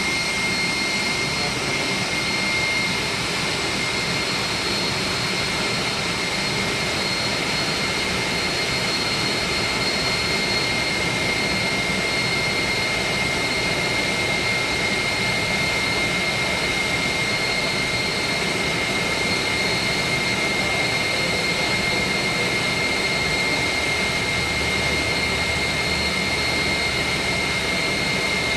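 Steady roar of centrifugal chiller machinery with a constant high-pitched whine; a deeper hum joins about three quarters of the way through.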